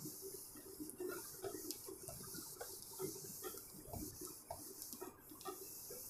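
Teaching board being wiped clean with an eraser: a run of quiet, irregular rubbing and scuffing strokes.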